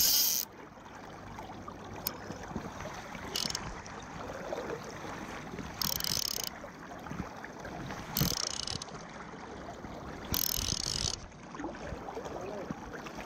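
Fly reel's ratchet drag buzzing in several short bursts, each under a second, as a hooked salmon pulls out line, over the steady rush of the river.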